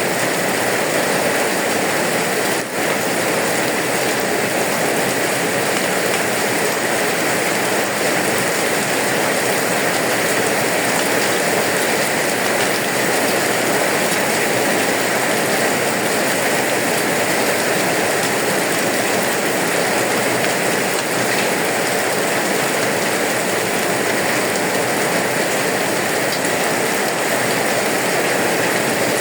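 Steady heavy rainfall, an even loud hiss with a brief dip in level near the start.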